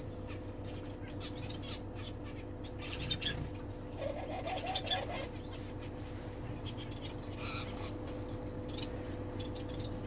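Small aviary finches giving short, high chirps in scattered bouts, busiest between about three and five seconds in and again a little past seven seconds, over a steady low hum.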